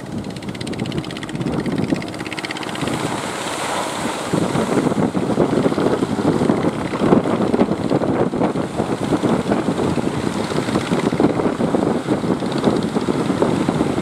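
Strong wind buffeting the microphone over the wash of surf; the buffeting grows heavier about four seconds in.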